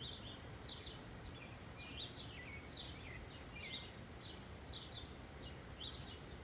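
Small birds chirping: a string of short, high, mostly down-slurred notes, one or two a second, over steady low background noise.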